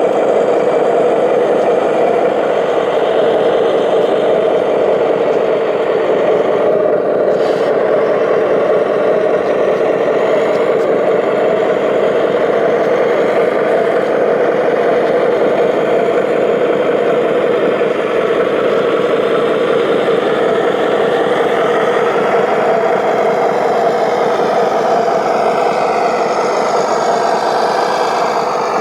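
Motors of a large radio-controlled construction machine running steadily, with a higher whine shifting in pitch near the end.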